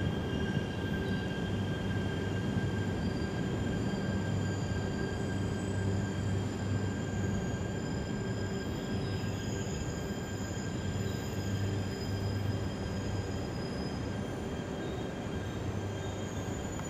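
E3 series 2000 Yamagata Shinkansen train rolling slowly alongside the platform as it arrives, a steady low hum with several thin, high-pitched tones held over it.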